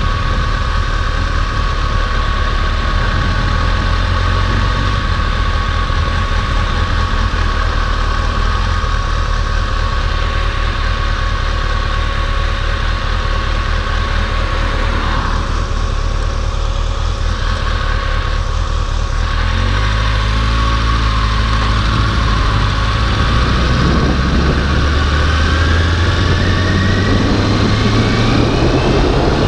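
Motorcycle engine running while being ridden. The engine note shifts about two-thirds of the way through, and near the end a rising whine shows the bike speeding up.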